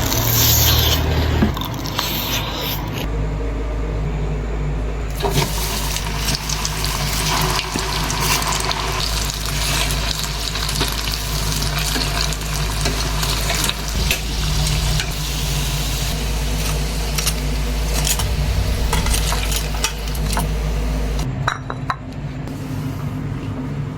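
Wet, close-up chewing and mouth sounds of eating chocolate-glazed banana, with many small smacks and clicks over a steady low hum.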